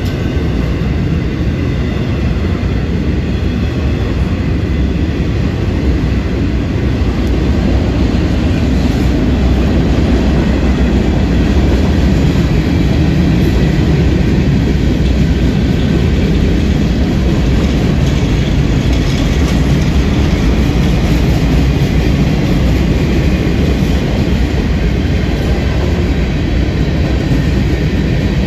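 Freight cars of a Florida East Coast intermodal/manifest train rolling past a grade crossing: a loud, steady low rumble of wheels on rail.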